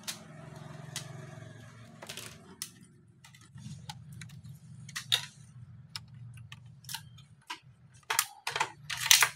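Plastic laptop parts being handled by hand: scattered clicks and taps as the WiFi antenna lead is unplugged and the base is lifted and set down, with louder clatter near the end. A low steady hum runs underneath for most of it.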